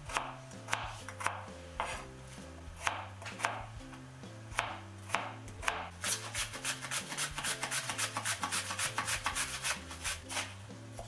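Kitchen knife chopping on a plastic cutting board in separate strokes about every half second, then about six seconds in an onion slid rapidly back and forth over a handheld mandoline slicer, about five or six strokes a second, stopping near the end. Background music plays underneath.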